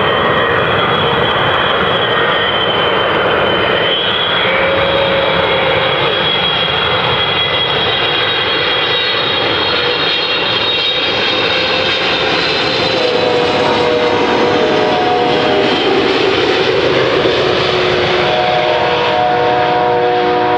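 Boeing 777 jet engines, loud and steady as the airliner comes in to land, with a high whine that drifts slightly down. From about 13 seconds in, a set of steady lower tones joins.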